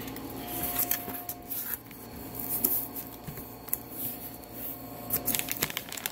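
Cardboard box flaps being opened and handled, with scattered short rustles and taps, and a cluster of rustling near the end as the plastic wrapping inside is grabbed.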